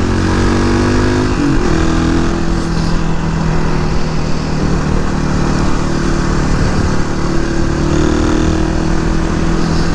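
Suzuki DR250S single-cylinder four-stroke engine running under way through a Dominator R aftermarket exhaust. Its note shifts briefly about a second and a half in, then holds steady.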